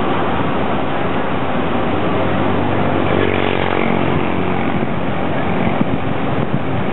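Steady rush of fast-flowing, flood-swollen river water and wind on the microphone at a river barrage, with an engine humming underneath, clearest about three seconds in.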